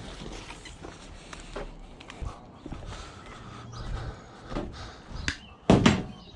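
Scrap being handled: scattered knocks and rattles, with one loud bang a little before the end.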